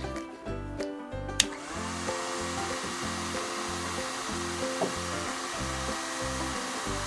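A hair dryer blowing, switched on with a click about a second and a half in, over background music with a steady beat.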